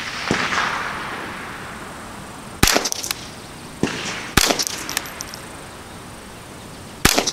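Ruger 10/22 semi-automatic .22 LR rifle fired three times, about two to three seconds apart, each shot followed by a few faint clicks.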